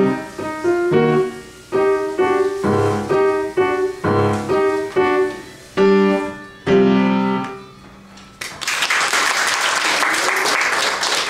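Upright piano playing a short piece of single notes and chords, ending on a held chord that dies away. From about eight and a half seconds in, an audience applauds.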